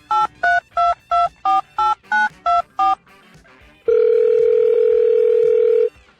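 Telephone keypad tones: about ten short two-note beeps in quick succession as a number is dialed, then the line ringing with one steady tone for about two seconds.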